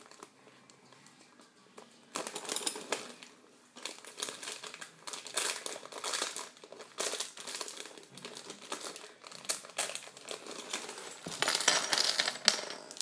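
Plastic toy-kit packaging and small plastic pieces being handled: irregular clicks, rattles and some crinkling, quiet for about the first two seconds and busiest near the end.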